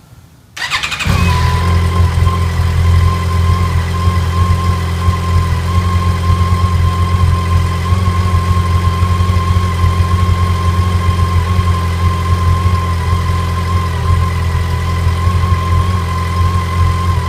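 Yamaha FJR1300's inline-four engine started on the electric starter about half a second in, catching almost at once and then idling steadily. It is run at idle after an oil change so the fresh oil circulates and fills the new oil filter before the level is checked again.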